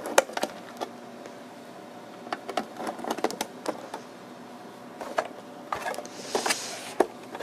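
Flathead screwdriver unscrewing the screws from a small radio's back cover: scattered light clicks and scrapes of the blade in the screw slots, with a brief rustle of handling near the end.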